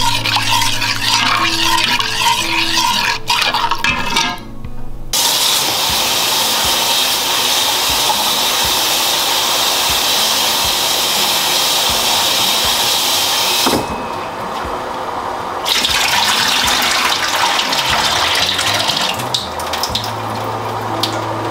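Kitchen faucet running hard, water splashing into a ceramic bowl of chopped vegetables as they are rinsed. The flow cuts out for a couple of seconds about two-thirds through, then runs again. Background music plays in the first few seconds and again near the end.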